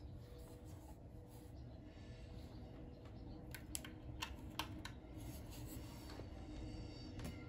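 Handling noise of a plastic LED desk lamp being lifted and a USB cable plugged into the port on its base, with a quick cluster of sharp clicks about halfway through.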